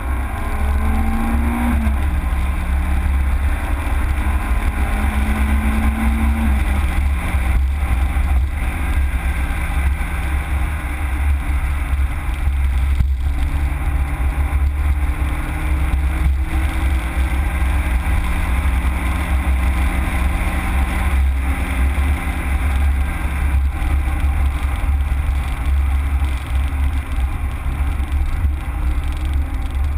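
Citroën Saxo VTS's 1.6-litre 16-valve four-cylinder engine heard from inside the cabin over a heavy low rumble, its note rising as the car accelerates and dropping at gear changes, about 2 and 7 seconds in.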